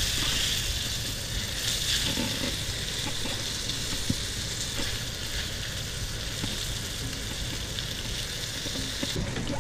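Panko-breaded fish fillets sizzling steadily in butter and olive oil in a cast iron skillet, with a few light clicks as they are handled in the pan.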